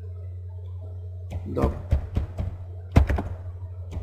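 Computer keyboard keystrokes: a handful of sharp taps in the second half, the loudest about three seconds in, over a steady low electrical hum.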